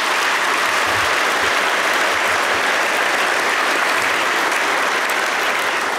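A large audience applauding steadily, a dense even clatter of many hands clapping in a big hall.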